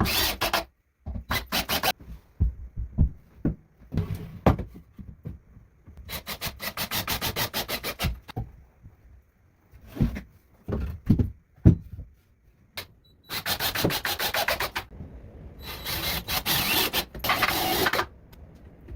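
Rasping and rubbing strokes of a hand tool working wood, coming in several bursts of fast, even strokes, with a few sharp knocks in between.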